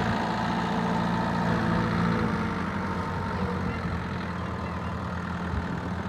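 Kubota M6040 tractor's four-cylinder diesel engine running steadily at low speed as the tractor creeps forward laden with sacks of rice.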